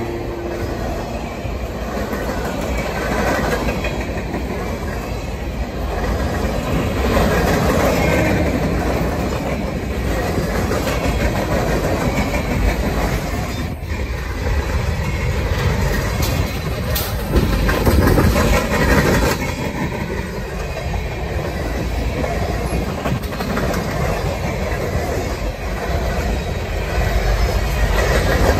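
Freight cars of a passing freight train rolling by at close range: a steady, loud noise of steel wheels running on the rails.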